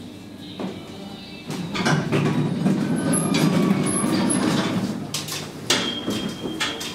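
A 1967 Flohr-Otis elevator's sliding doors opening, with a click about half a second in and then a few seconds of loud rumbling noise as the doors run open. A sharp click comes near the end.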